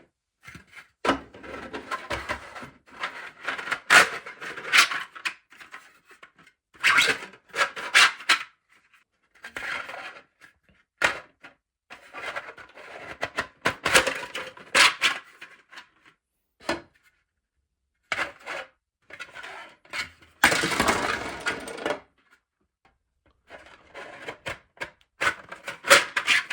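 3D-printed plastic lamp diffuser segments handled and slid together by hand: irregular clicks, clacks and light scrapes in clusters, with a longer scraping rustle about twenty seconds in.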